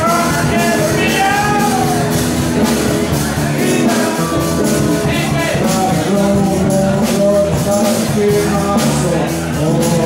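Live rock band playing amplified in a bar: a singer's voice over drums and band.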